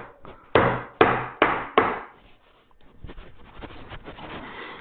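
Mortise chisel being driven into wood by four sharp blows in quick succession, each ringing briefly, as a mortise is chopped by hand. A softer, rapid crackling follows for the last two seconds.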